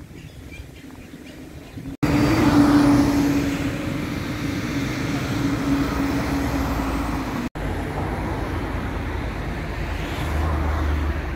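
Street traffic: motor vehicles passing on the road, with a steady engine drone for several seconds in the middle. The sound cuts off sharply twice, a moment each time.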